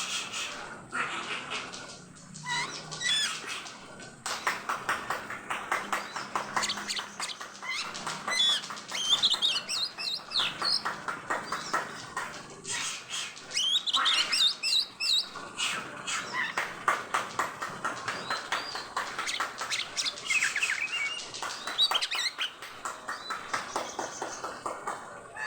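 Oriental magpie-robin (kacer) singing without a break: fast chattering notes mixed with whistled, gliding phrases. This is the heavy song of a male in full breeding condition.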